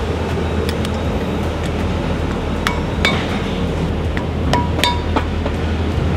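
Several sharp metallic clinks and taps, each with a brief ring, as valve stem seals are pressed onto a diesel cylinder head's valve guides with a hand tool, over a steady low hum.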